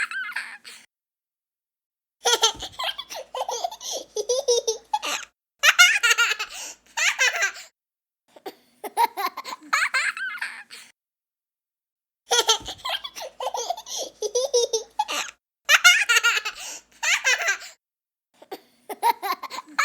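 Young child laughing in fits of rapid, bubbling laughs, each fit lasting several seconds, with short silent gaps between them.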